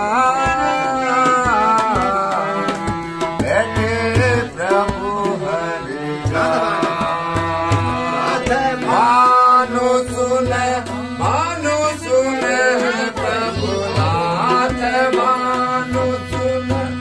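A man singing a Kumaoni Ramlila verse in long, ornamented phrases that rise and fall, accompanied by a steady tabla beat and a sustained harmonium.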